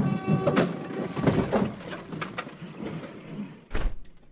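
A road collision in which a caravan is smashed apart. It opens suddenly with a brief blaring tone, then a run of crunching, clattering impacts of breaking panels and flying debris, and ends in one last heavy bang near the end.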